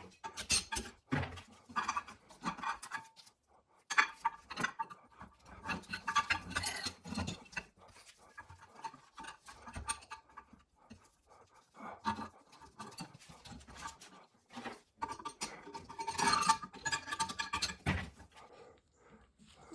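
Metal vise parts clinking, knocking and scraping as they are handled and fitted together, in irregular short clusters.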